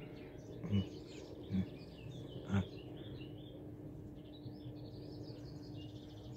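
Small birds chirping and calling, over a faint steady low hum. Three dull low thumps come in the first three seconds.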